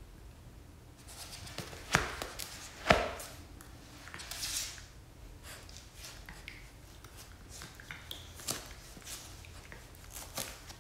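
Two Norfolk terriers wrestling in a plush dog bed: scuffling and rustling of fur and bedding with scattered small knocks, and two sharp knocks about two and three seconds in.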